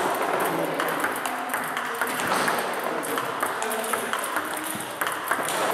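Table tennis balls clicking in quick succession: struck by rubber-faced bats and bouncing on the table in multiball practice, with balls fed one after another from a box.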